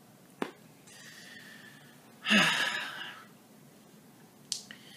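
A man's heavy sigh, one breathy exhale about two seconds in, with a small click before it and another near the end.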